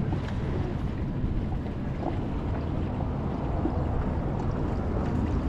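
Steady rush of wind buffeting the microphone, with water gurgling against a kayak hull.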